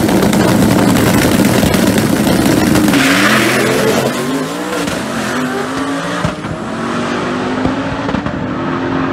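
Turbocharged or supercharged fourth-generation Chevrolet Camaro drag car launching at full throttle, the engine running hard and climbing in pitch through gear changes as it pulls away down the strip.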